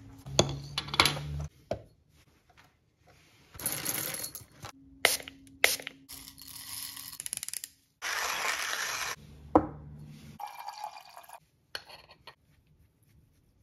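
A string of short, separately cut handling sounds from preparing coffee with a hand grinder: brief hisses of a spray bottle misting the beans, and clicks and clinks of metal grinder parts and beans, broken by abrupt silences.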